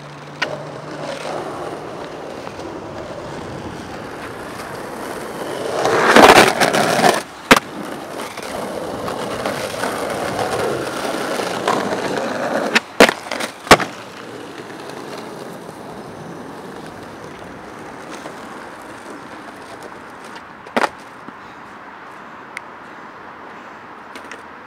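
Skateboard wheels rolling on pavement, with a loud grinding scrape lasting about a second around six seconds in. Sharp clacks of the board follow: one just after the scrape, two close together about halfway, and one more later.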